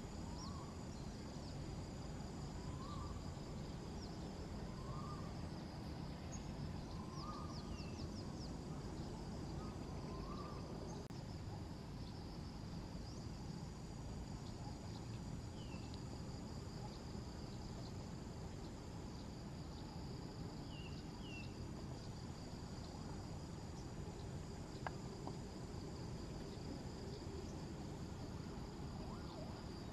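Outdoor ambience: a steady high insect buzz over a low, even background rumble. About five short calls repeat every second or two during the first ten seconds, with a few faint high chirps scattered later.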